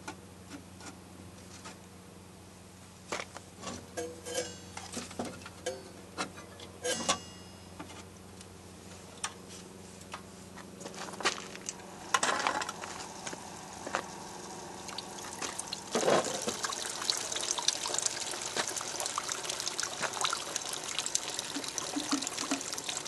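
12-inch wet lapidary drop saw cutting through petrified wood: a steady motor hum with scattered clicks and knocks, then from about twelve seconds in a louder, steady hiss and spatter of coolant water as the blade cuts into the stone.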